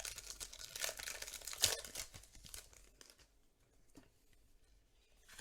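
A foil Pokémon trading card booster pack being torn open and crinkled for about three seconds, then quieter handling of the pack and cards with a few light clicks.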